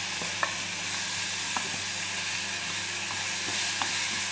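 Cut ambarella pieces sizzling in hot oil and spice mix in a small saucepan while being stirred with a spoon. There is a steady frying hiss, with a few light clicks of the spoon against the pan.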